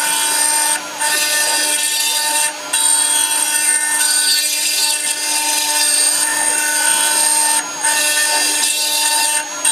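Stone CNC router spindle running at speed, its bit grinding into a black-stone Buddha head turning on the rotary axis. A steady high whine made of several held tones over a hiss, dipping briefly about four times.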